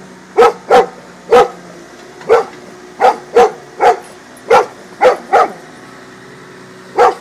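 Golden retriever barking at a digging excavator: about eleven short, loud barks, mostly in quick pairs, with a pause of over a second before the last one near the end. The excavator's engine runs steadily underneath.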